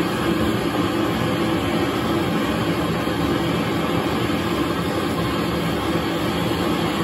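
A 1¼-inch LPG flamethrower torch burning with a steady, even rush of gas flame, preheating a model locomotive boiler for silver soldering.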